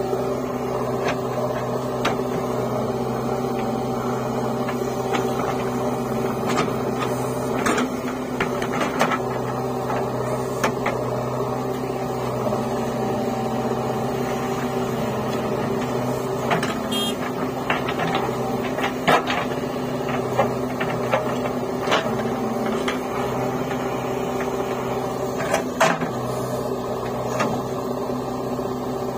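JCB 3DX backhoe loader's diesel engine running steadily under load as the backhoe arm digs and dumps soil, with scattered short knocks and clanks.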